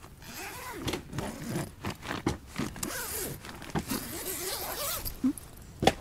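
A zipper pulled in a run of short, jerky tugs, each a quick scraping sweep in pitch, with a sharp knock just before the end.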